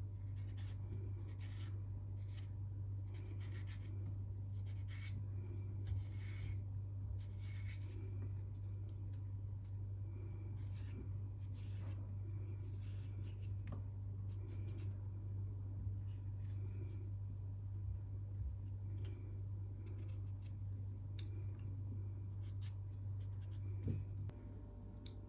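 Quick, irregular scratching and rubbing strokes, like light handling of objects, over a steady low hum.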